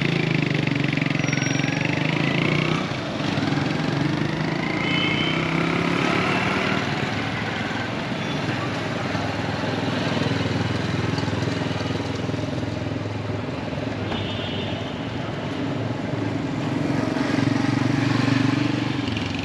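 Street traffic: motor vehicles passing, with engine sounds that swell and fade, and one louder pass near the end.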